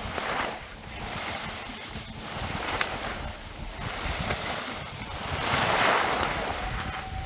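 Skis hissing and scraping over wet snow, swelling and easing every second or two as the skier turns, with wind buffeting the camera's microphone.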